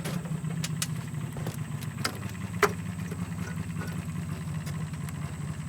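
Engine idling steadily, with a few sharp clicks or knocks over it, the loudest a little past halfway.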